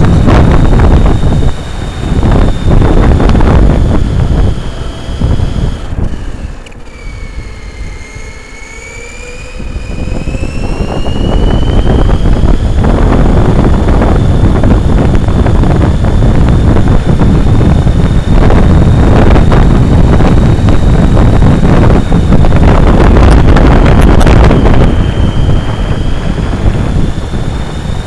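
Electric RC car with an upgraded motor and ESC driving on asphalt: loud rough rumble of tyres and wind on its onboard mic under a high, steady electric motor whine. The whine drops in pitch and the rumble fades from about six to ten seconds in as the car slows, then both rise back as it speeds up again.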